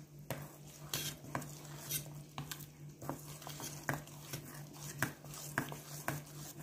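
Metal spoon stirring thick flour batter in a stainless steel bowl, with irregular clinks and scrapes as the spoon knocks against the bowl's side.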